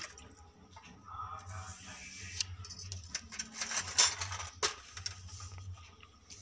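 Scattered light clicks, knocks and rustling as the phone and small objects are handled, over a low steady hum; the loudest knock comes about four seconds in.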